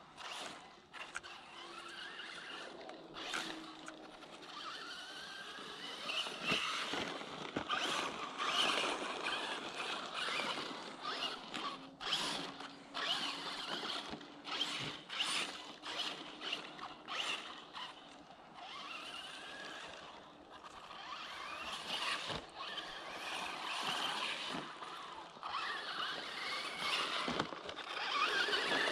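Traxxas Slash 4x4 electric RC short-course truck driving on a dirt track. Its motor and drivetrain whine rises and falls with the throttle, with frequent sharp knocks and rattles as it runs over the bumps.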